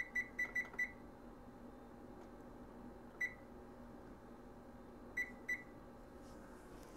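Electric range's control panel beeping as its touch keys are pressed to set a 30-minute kitchen timer: a quick run of about five short beeps in the first second, a single beep about three seconds in, and two more about five seconds in.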